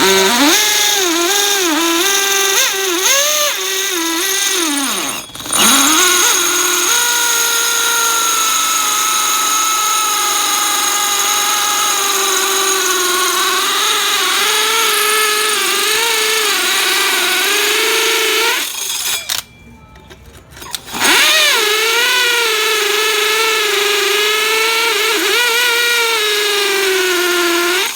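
DeWALT DCD996 cordless drill running under load, drilling, its motor pitch sagging and wavering as the bit bites. It stops briefly about five seconds in, and again for a couple of seconds near the two-thirds mark, before running on.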